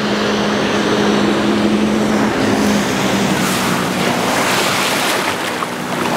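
Ski boat engine running past close by, its steady hum dropping in pitch a little past two seconds in, over the rush of churned water and a slalom skier's spray.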